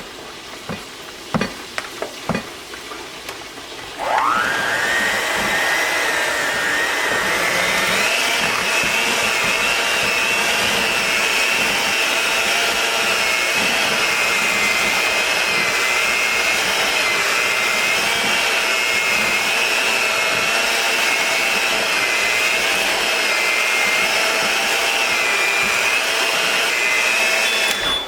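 A few sharp knocks, then a small high-speed electric motor switches on about four seconds in. It whines up to speed and runs steadily for over twenty seconds, then stops abruptly.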